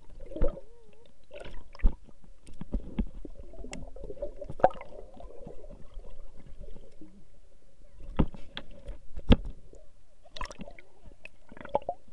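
Water sloshing and gurgling against a waterproof action camera's housing held at or just under the surface, heard muffled through the housing, with a faint steady hum and several sharp knocks, the loudest about half a second in, near 2 s, and twice near 8 to 9 s.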